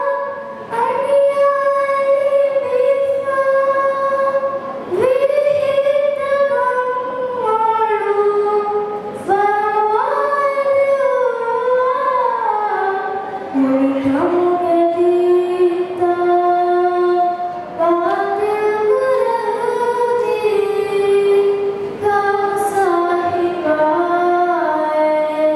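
A girl singing a madhaha, a Maldivian devotional song, solo: long held notes joined by sliding turns, in phrases a few seconds long.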